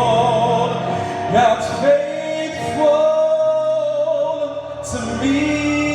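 Gospel worship song sung with instrumental accompaniment, the voice holding long, drawn-out notes, with a change of note about five seconds in.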